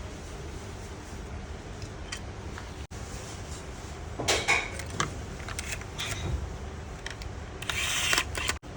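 Small metal parts clinking and clattering as they are handled, in two short flurries, over a steady low hum.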